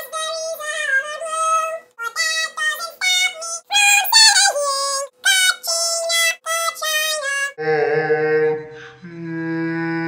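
High-pitched singing voice running through a quick tune in short phrases. About seven and a half seconds in, it gives way to a low, steady held tone with many overtones.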